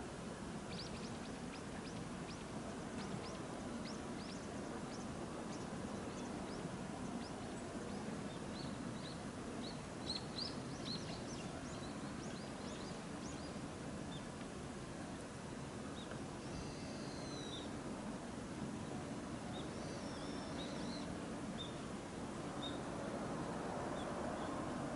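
Outdoor morning ambience: a steady low background noise with small birds chirping, many short high chirps through the first half and scattered ones later, and a couple of longer multi-note calls after the middle.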